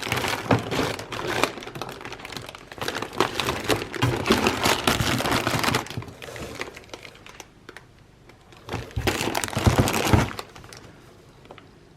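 Crinkling and rustling of packaging being handled and crumpled, dense for about six seconds, then quieter, with another burst of crinkling near the end.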